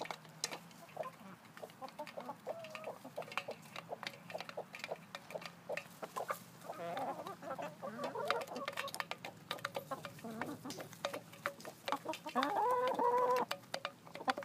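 A flock of laying hens clucking as they peck from a metal enamel pan, their beaks tapping on it in a quick, irregular run of clicks. A longer, louder call from one hen comes near the end.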